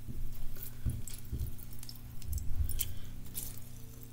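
Lemon wedges being squeezed by hand over a ceramic bowl: soft squelching with a few small clicks scattered through it.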